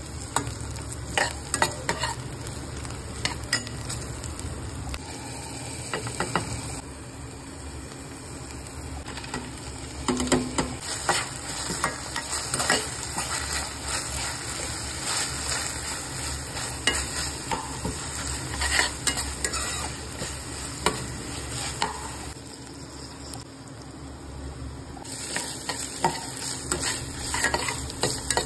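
Sliced onions, peanuts and green chillies frying in oil in a nonstick kadai, sizzling steadily while a perforated metal spatula stirs them, with frequent clicks and scrapes of the spatula against the pan.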